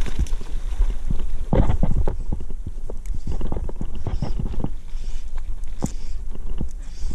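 Wind buffeting the camera microphone: a steady low rumble with many irregular thumps and knocks.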